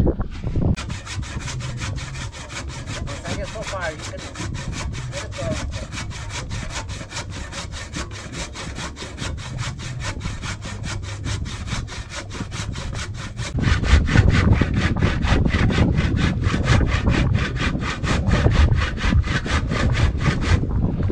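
Old hand saw cutting through a piece of mangrove wood in rapid, even back-and-forth strokes; its teeth have been set wider with pliers so the blade will not bind in the cut. The strokes grow louder and harsher about two-thirds of the way through.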